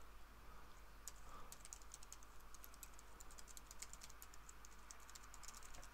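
Faint typing on a computer keyboard: quick, irregular keystrokes in short runs with brief pauses between them.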